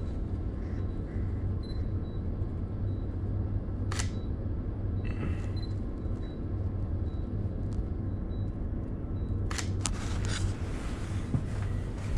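Steady low rumble inside a regional train carriage, with a sharp click about four seconds in and a few more clicks near the ten-second mark.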